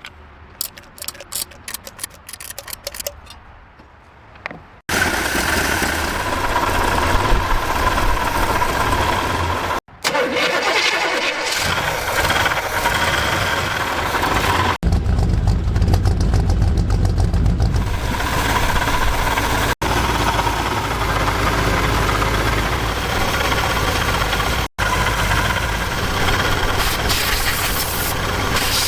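Car engine starting and running, in several short pieces that cut off abruptly every few seconds, after a run of rapid clicks at the start.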